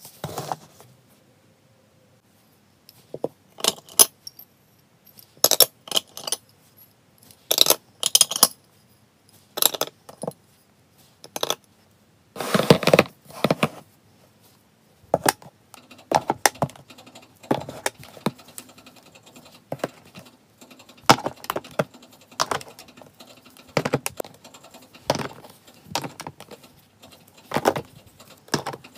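Irregular sharp clinks and taps of hard items being handled and set down: glazed ceramic pet bowls knocking as they are stacked, and metal cat-food tins clinking together.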